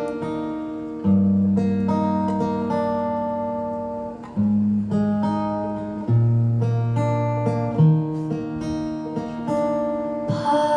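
Acoustic guitar playing a song's intro live, with low bass notes coming in about a second in and changing every couple of seconds.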